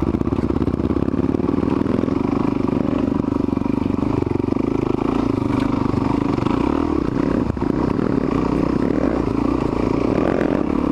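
Suzuki DR-Z400SM's single-cylinder four-stroke engine running steadily as the bike climbs a dirt trail, heard close from a camera mounted on the bike.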